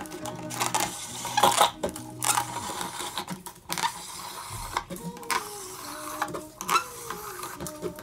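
A PET plastic bottle crackling and scraping as a strip is pulled off it through a homemade bottle cutter's blade, the bottle turning against the wooden base. Irregular clicks and rasps, with a few short falling squeaks in the second half.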